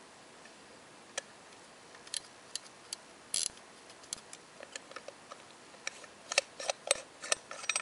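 Irregular small metallic clicks from a U.P. Flyer pocket watch being handled, scattered at first and then a quicker, louder run of clicks near the end as fingers turn the crown, its winding ratchet clicking.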